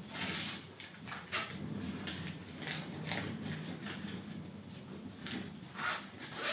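Cotton-blend pillow protector fabric rustling as hands smooth and handle it on a table, in short, irregular brushing strokes.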